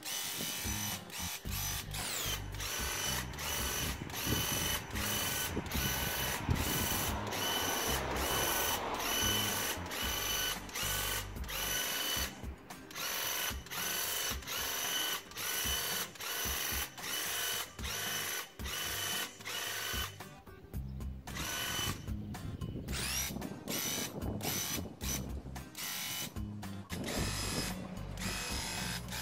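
Graco Ultra handheld airless paint sprayer's electric piston pump buzzing while it sprays, with regular short breaks.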